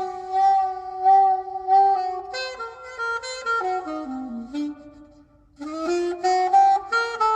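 Recorded music: an instrumental break in a slow jazz-style ballad, with a saxophone playing the melody in long notes and stepwise phrases. The melody breaks off for a moment a little past the middle, then comes back in.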